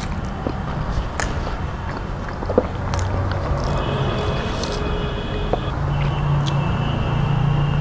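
Close-up mukbang eating sounds: a man chewing a mouthful of rice and vegetable curry eaten by hand, with small wet mouth clicks and smacks. A steady low hum runs underneath.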